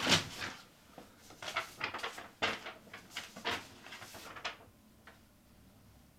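Sheets of paper rustling as they are picked up and leafed through: a string of irregular rustles and flaps that stops about four and a half seconds in.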